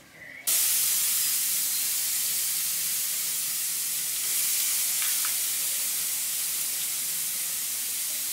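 Food sizzling on a barbecue grill, a steady hiss that starts abruptly about half a second in.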